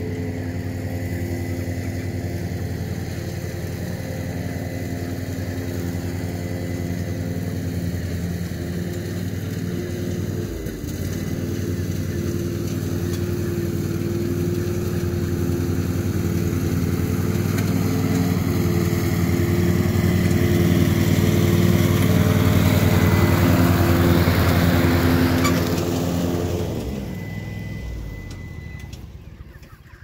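A small engine running steadily, with a brief dip in its note about a third of the way in, growing louder toward a peak about three quarters through, then dying away over the last few seconds.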